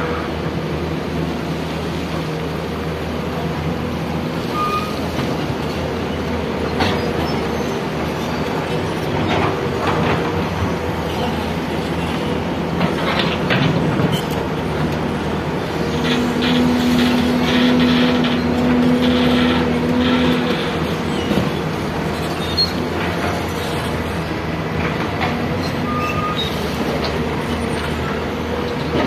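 Excavator's diesel engine running steadily under load, with scattered metallic clanks and knocks of the digging work. For about four seconds past the middle a steady humming tone stands out above the engine.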